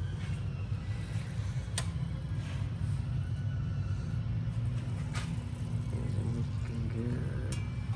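Steady low rumble of repair-shop background noise, with three sharp clicks or taps spread across it.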